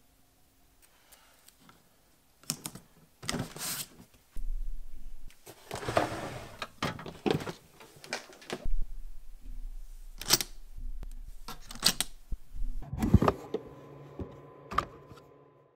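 Camera being handled and moved about: scattered clicks, knocks and rustles, with a brief steady tone near the end.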